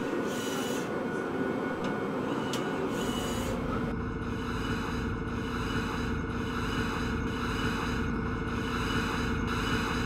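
Two short mechanical whirs over a steady machine hum. About four seconds in, a steady low rumble like a jet airliner cabin in flight takes over.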